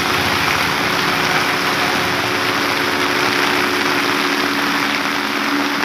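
Motorcycle engine idling steadily, with steady rain noise over it.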